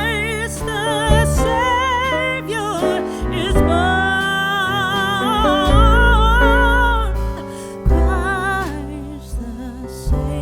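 Background music: a slow song with a long-held melody wavering in vibrato over a steady bass accompaniment.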